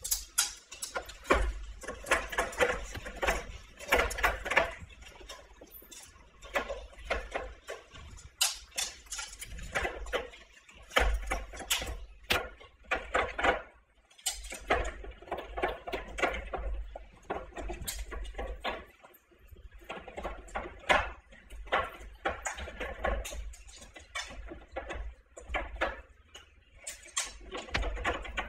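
Black Labrador eating from a plastic slow-feeder bowl: its snout works among the spikes, making irregular clicks and rattles.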